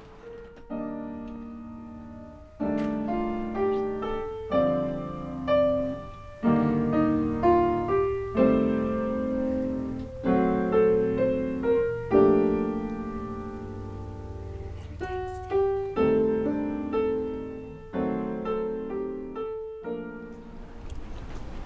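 Solo piano music: slow chords, each struck and left to ring, one every second or so, with a softer held stretch midway.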